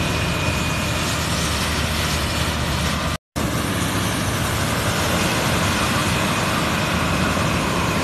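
Self-propelled corn harvester's engine and picking machinery running steadily under load, with a brief break in the sound about three seconds in.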